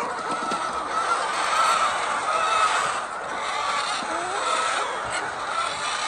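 A flock of white laying hens in a poultry shed calling and clucking together, a steady chorus of many overlapping wavering calls. A single short click comes near the end.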